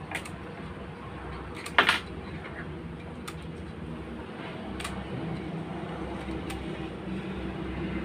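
Sharp clicks from a silicone caulking gun being worked, the loudest a double knock about two seconds in and a few fainter single clicks later, over a steady low background hum.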